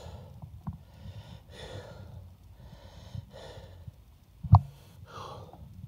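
A person breathing heavily and rhythmically, about one breath a second, over a steady low rumble. A single sharp knock comes about four and a half seconds in.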